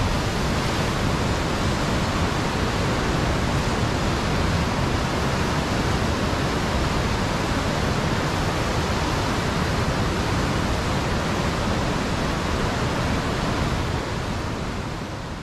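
Heavy sea surf breaking and churning over shoreline rocks: a steady, loud roar of rushing water that fades out near the end.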